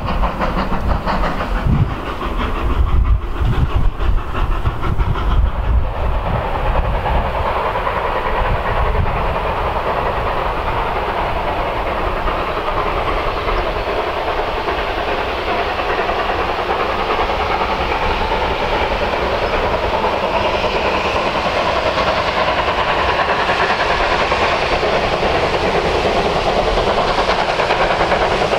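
Steam-hauled train approaching in the distance, its running sound a steady noise that grows slightly louder toward the end. There is a gusty low rumble over the first few seconds.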